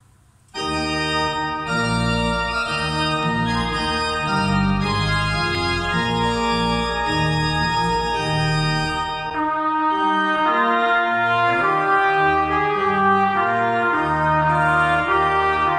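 Pipe organ playing a chordal introduction, coming in suddenly about half a second in. A trumpet joins it about two thirds of the way through.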